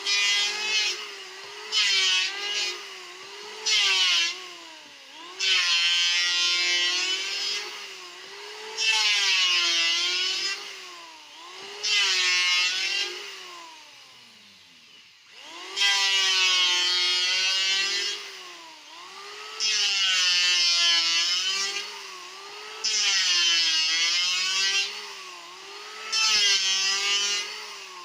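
Electric hand planer shaving a wooden paddle: the motor whines steadily, and about ten cutting passes of one to two seconds each add a hissing rasp as the blade bites, with the motor's pitch dipping under the load. There is a short lull about halfway through.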